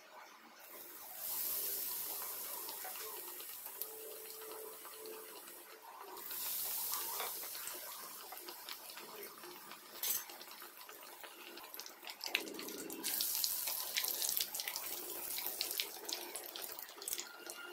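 Batter-coated bread slices sizzling in hot oil in a frying pan: the sizzle jumps up as a slice goes in about a second in and again about six seconds in. In the second half it turns to a busy crackle with many sharp pops.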